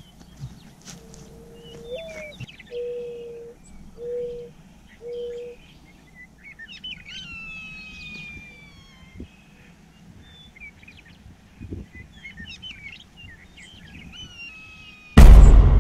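Birds calling and singing outdoors. A low, steady call comes four times in the first few seconds, followed by chirps and long whistled notes that glide downward. A sudden loud rumble cuts in near the end.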